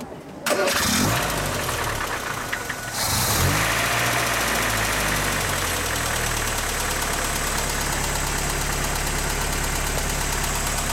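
The four-cylinder engine of a 1965 Triumph TR4 starting. The starter cranks about half a second in, and the engine catches about three seconds in, its revs rising briefly before it settles into a steady, smooth idle.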